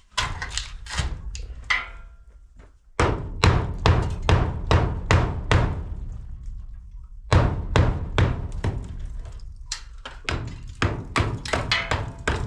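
Hammer blows on a steel window frame as it is knocked into position in a concrete-block wall opening: quick runs of sharp knocks, about two to three a second, with brief pauses between the runs.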